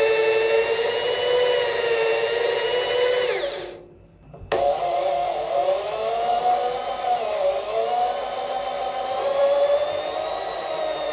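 Electric drill motor whining as a twist bit drills into painted sheet metal. The drill winds down and stops about three and a half seconds in, then starts again sharply about a second later. It runs on with its pitch dipping briefly a couple of times under load.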